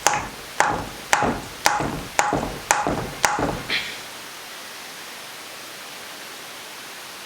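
Hammer blows on the cylinder of a Suzuki DS125 two-stroke engine, about two a second with a short metallic ring, struck to break the jug free of a tightly stuck base gasket. The blows stop a little under four seconds in, leaving a steady background hiss.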